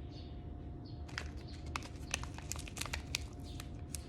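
Packaging crinkling and rustling in short, irregular crackles as a packet of dried lavender is handled, over a faint steady background hum.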